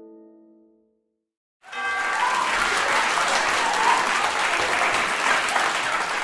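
Theme music with plucked notes dies away, and after a brief silence a live audience breaks into steady applause.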